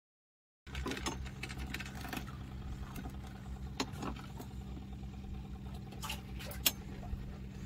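Silence for the first half-second, then a fishing boat's engine running steadily with a low hum. A few sharp clicks or knocks sound over it, the loudest near the end.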